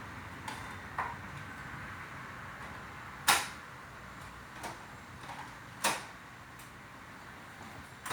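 A steady even hiss with irregular sharp clicks and knocks over it, the loudest about three seconds in and another strong one near six seconds.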